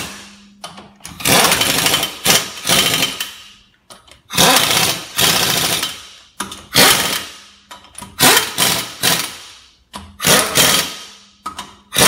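Impact wrench hammering lug nuts onto a steel wheel, in about five separate bursts of a second or two each as the nuts are snugged up one after another in a star pattern.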